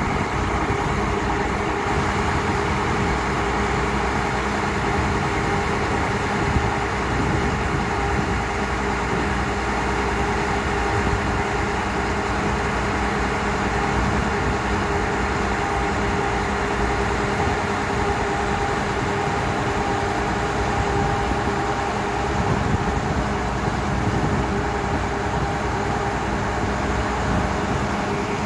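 Engine of a ZT-18 horizontal directional drilling rig running steadily, an even hum that holds the same pitch throughout.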